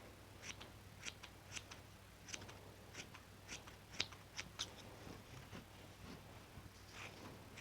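Scissor blades snipping: a quiet run of short, crisp snips, roughly two a second and unevenly spaced.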